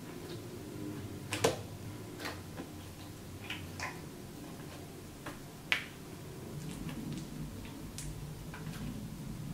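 Slime being mixed and squeezed by hand, giving irregular sharp clicks and pops from air pockets bursting in the slime. The two loudest pops come about one and a half seconds in and just before six seconds, over a soft low handling sound.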